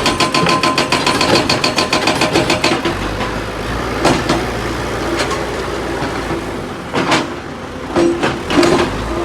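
Hydraulic rock breaker on a Tata Hitachi EX 210 LC excavator hammering rapidly, about ten blows a second, then stopping about three seconds in. The excavator's diesel engine keeps running, with a few separate knocks of stone or steel near the middle and end.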